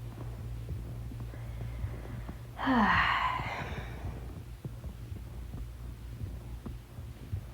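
A loud, breathy sigh with a falling voice about two and a half seconds in, fading over a second or so, over a steady low hum and a few small clicks.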